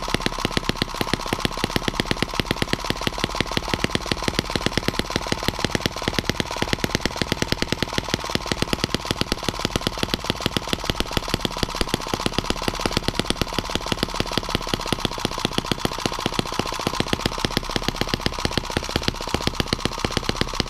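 M17B miniature four-stroke model engine running steadily, a fast, even train of sharp exhaust pops. It is noisy and runs a little unevenly while being tuned.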